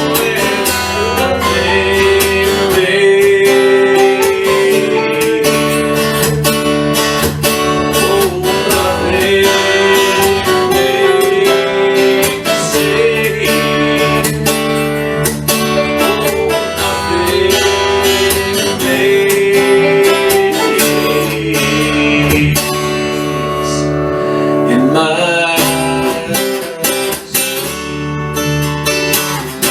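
Instrumental break of a folk-country song: strummed acoustic guitar with a held, sliding melody line above it.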